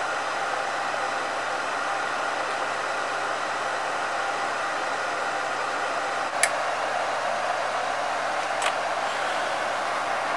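Steady blowing hiss of a running fan, even and unchanging throughout, with two light clicks in the second half.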